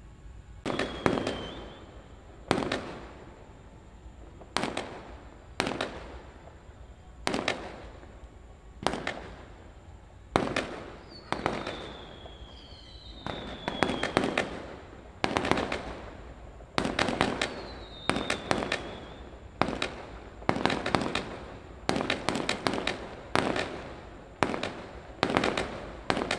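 Aerial sky-shot fireworks from a multi-shot battery bursting overhead: a run of sharp bangs, one every second or two at first, then coming faster and in quick pairs in the second half. A few falling whistles sound between the bangs.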